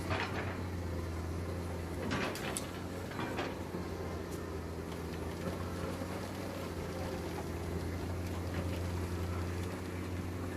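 Diesel engine of heavy earthmoving machinery running steadily with a low drone, with a few sharp clanks just over two seconds in and again about a second later.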